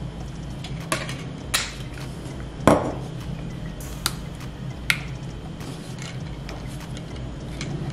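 Handling noise from a plastic phone stand being adjusted and set on a granite countertop: about five short, separate clicks and light knocks, the heaviest knock a little under three seconds in.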